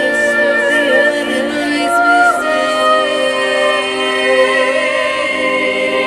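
Busker music through a small amplifier: a woman's voice singing long, wordless held notes, several stacked at once in harmony, moving to new notes about two seconds in.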